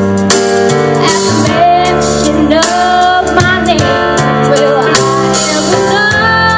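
A young girl singing over instrumental accompaniment, holding long notes.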